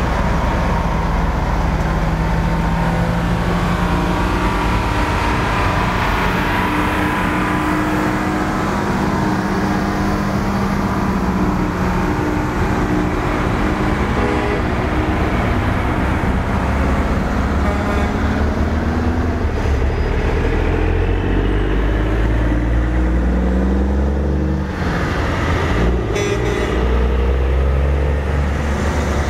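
Heavy diesel trucks driving past one after another, their engines running loud and steady, with the engine note rising near the end.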